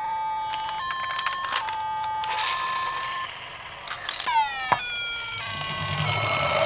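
Toy ambulance's electronic two-tone siren, stepping between a lower and a higher tone about every 0.8 seconds. A little after four seconds in it breaks off into a falling tone and a sharp click, and other steady electronic tones follow.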